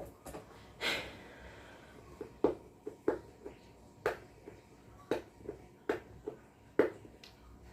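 A quick breath or sniff about a second in, then a string of light, sharp clicks and taps from small items being handled, about one or two a second.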